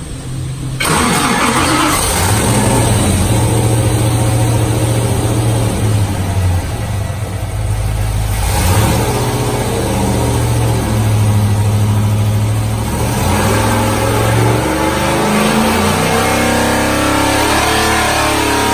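Whipple-supercharged 427 cubic-inch V8 running hard on an engine dyno. It jumps to full loudness just under a second in, holds a steady pitch through most of the run, and its pitch drops and wavers in the last few seconds.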